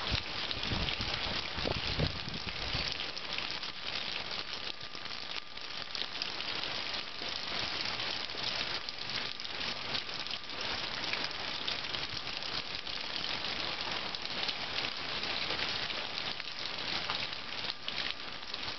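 Heavy rain falling steadily, a dense hiss of drops splattering on surfaces. A few low thumps come in the first few seconds.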